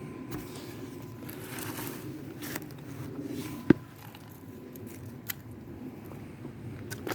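A faint steady ringing tone sounds twice, about two seconds near the start and about three seconds from the middle, over a low steady rumble, with one sharp click about three and a half seconds in.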